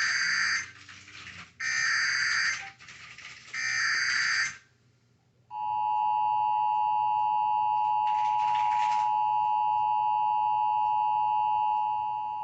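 Emergency Alert System activation: three short bursts of warbling SAME digital header data, a pause of about a second, then the steady two-tone EAS attention signal from about five and a half seconds in, announcing a National Weather Service flash flood warning.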